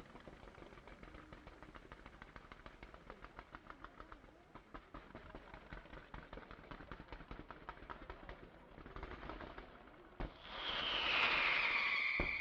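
Fireworks: a fast, dense crackle of many small pops, then about ten seconds in a single sharp bang followed by a much louder rush of whistling fireworks with wavering shrill tones and another sharp crack near the end.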